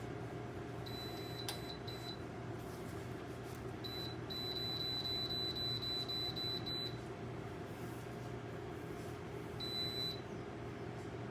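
Electronic beeps from a Dreo ceramic space heater's control panel as its buttons are pressed: a few single beeps, then a quick run of short beeps midway, and one more near the end. Under them the heater's fan hums steadily.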